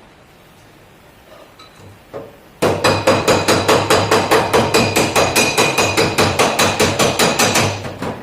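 Hammer beating a car door's sheet-metal panel, rapid even blows about four to five a second with a metallic ring. A couple of light knocks come first; the run of blows starts about two and a half seconds in and stops just before the end.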